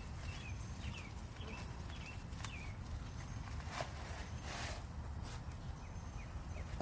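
Potting mix being scooped and moved by hand: rustling scrapes of soil and a few light knocks, over a steady low rumble.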